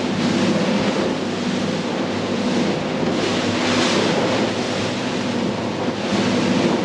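Boat engine running steadily at speed under the rush of water from the hull and wake, with wind buffeting the microphone in gusts.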